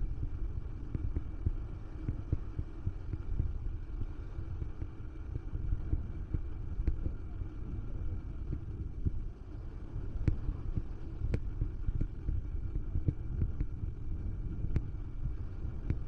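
Wind buffeting the microphone: a steady low rumble with irregular thumps, and a few sharp clicks in the second half.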